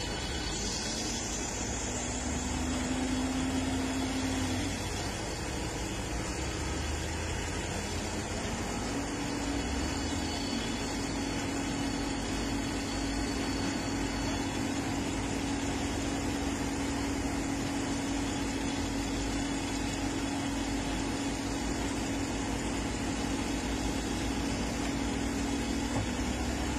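Heavy diesel engines of quarry machinery running under load: a steady humming engine note over a low rumble. The note drops about 5 s in, climbs back about 9 s in, and then holds steady.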